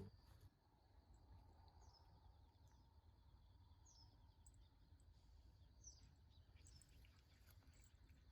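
Near silence with faint, short bird chirps, one about every two seconds, over a low background hum.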